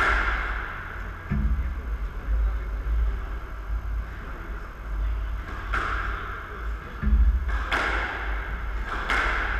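Several sharp, ringing knocks of a squash ball being struck between rallies, mostly in the second half, over a steady low rumble.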